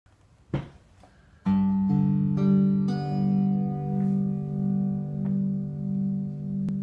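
Clean, unaffected electric cigar box guitar heard through a custom wooden-bodied magnetic pickup: after a small knock, a few strings are plucked one after another about a second and a half in and left to ring together as a chord, the level slowly swelling and dipping as it sustains.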